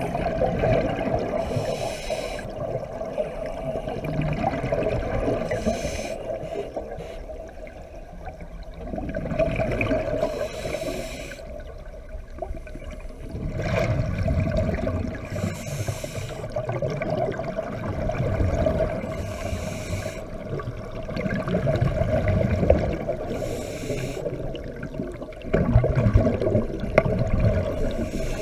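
Scuba diver breathing through a regulator underwater: a hissing breath and a rush of bubbles recur every few seconds, over a steady hum.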